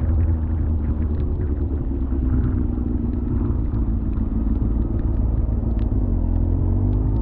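Motorcycle engine running at low road speed, a steady drone over a deep rumble, its pitch rising a little near the end as the throttle opens. Scattered light ticks sit over it.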